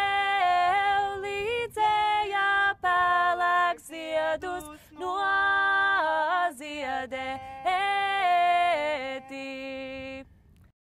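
Young women singing a Latvian folk song unaccompanied, in long held notes. The singing stops about ten seconds in.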